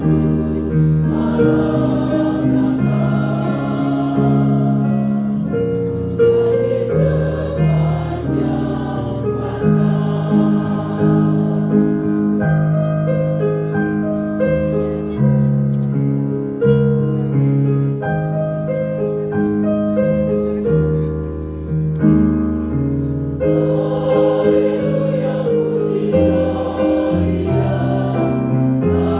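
Mixed choir of men and women singing a hymn in harmony, holding chords that change every second or so.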